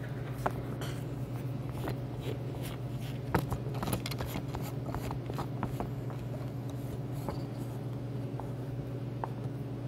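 Scattered light clicks and taps of small things being handled, most of them about three to four and a half seconds in, over a steady low hum.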